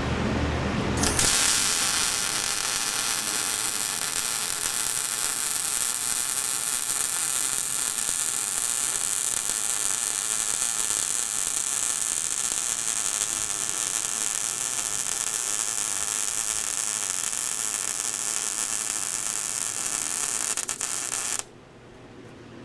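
Lincoln Pro MIG 140 MIG welder laying a continuous bead on quarter-inch steel plate with 0.030 in wire. The arc gives a steady hissing buzz that starts about a second in and cuts off suddenly near the end. Low wind rumble is heard before the arc strikes.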